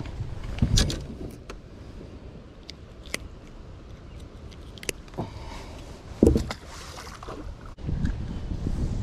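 Small clicks and knocks of a fish being unhooked with pliers, with two louder thumps, one about a second in and one past six seconds. Wind noise on the microphone rises near the end.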